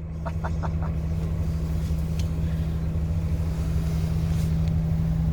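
A steady low hum with a rumble beneath it, held at one pitch throughout; about half a second in come four short, quick squeaks.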